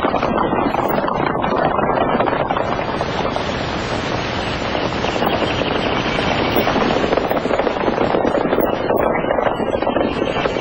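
Hoofbeats of a group of horses galloping, a dense, steady clatter.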